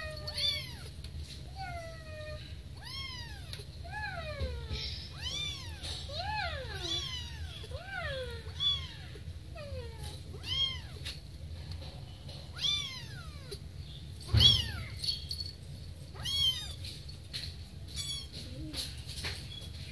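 Kittens meowing over and over, high calls that rise then fall in pitch, several voices overlapping. There are light clicks throughout and one sharp knock about two-thirds of the way through.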